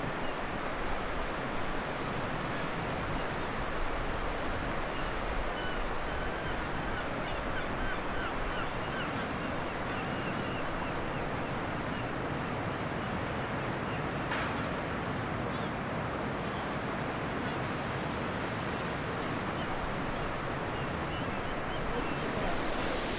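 Baltic Sea waves washing steadily onto the beach, a continuous even surf noise.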